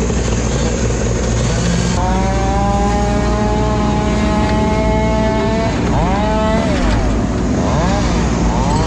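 Mini excavator's diesel engine running steadily, with a hydraulic whine that holds one pitch from about two seconds in, then swoops up and down again and again as the arm and grapple are worked.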